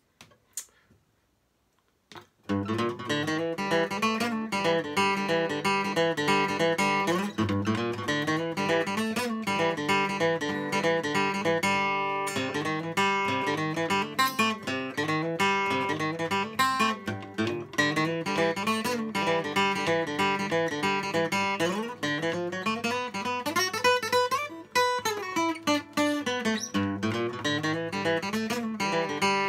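Solo steel-string acoustic guitar playing a song's instrumental introduction, with a rhythmic run of picked and strummed notes. It comes in about two and a half seconds in, after a short near silence.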